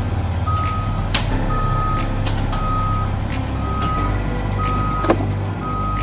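Heavy vehicle's reversing alarm beeping about once a second over a low, steady engine rumble, with a few sharp knocks, the loudest about five seconds in.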